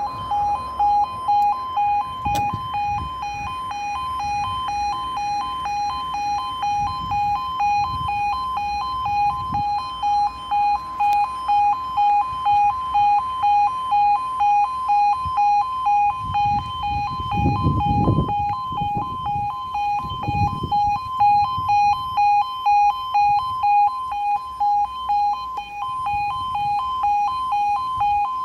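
UK level crossing warning alarm sounding while the barriers are down: a two-tone electronic alarm pulsing evenly about once a second. A low rumble comes twice midway.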